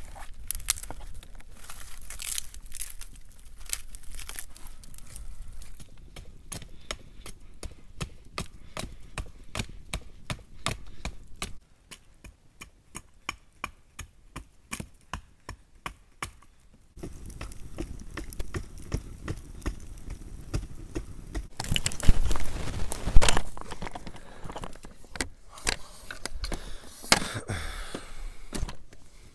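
Small kindling fire in a stone ring crackling and popping, a long run of sharp snaps. Later come louder rustling and a few heavy knocks.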